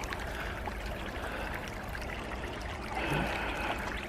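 Small creek trickling and running over rocks in a steady rush of water.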